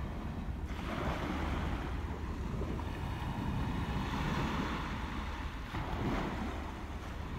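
Sea waves washing over shore rocks in swells of hiss, with a steady low rumble of wind on the microphone.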